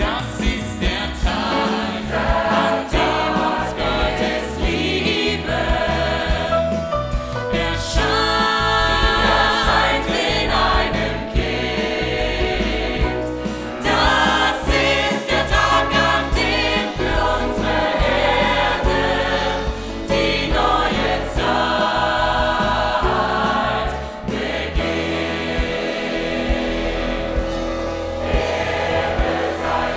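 Large mixed choir and solo singers singing with a live band, grand piano and drum kit among it.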